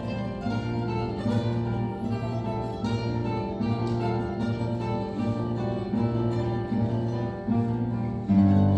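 Classical guitar quartet playing together: a dense texture of rapidly repeated plucked notes, which swells louder near the end.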